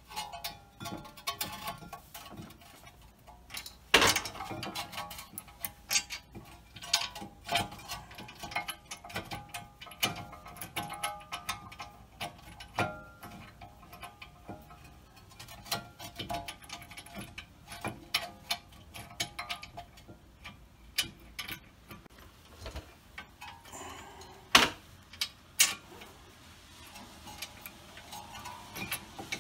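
Irregular metallic clicks, ticks and clinks of brake hardware being handled as the 15 mm bolts are threaded in and the rear caliper bracket with pads is fitted over the rotor, with two sharper knocks, one about four seconds in and one near the end.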